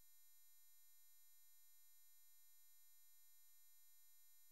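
Near silence, with only a very faint steady electrical tone.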